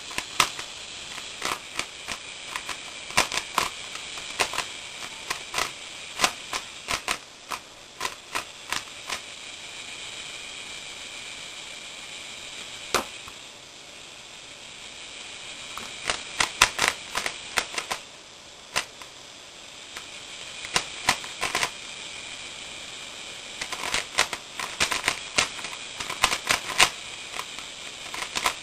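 A plastic 3x3x3 Rubik's cube being turned fast by hand: layers clicking and snapping in quick runs, with pauses between the runs.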